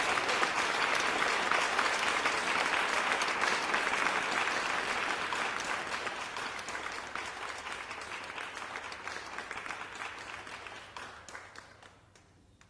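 Audience applause, thinning to a few scattered claps and fading out near the end.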